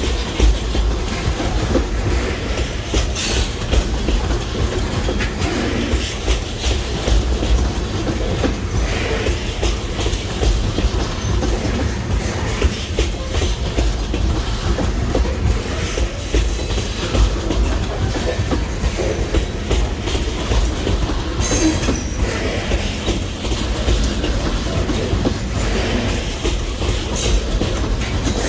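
Train rolling past close by, a steady heavy rumble of wheels on rail with clickety-clack and sharp clicks now and then as the wheels cross rail joints.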